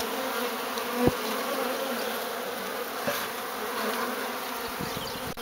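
Many honey bees buzzing in a steady hum around a hive. A short knock about a second in.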